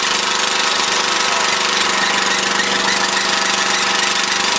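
A small engine running steadily with a fast, even rattle.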